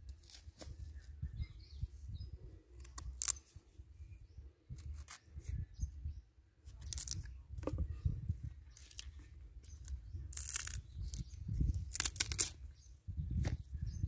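Rustling and crackling of bunches of green bananas being handled and moved about on grass, in scattered short strokes, over a low rumble of wind on the microphone.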